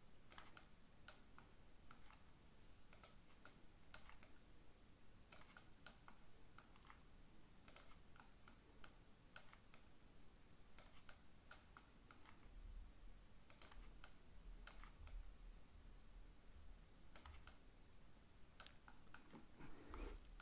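Faint, irregular clicks of a computer mouse selecting and dragging objects, often in quick pairs, over quiet room tone.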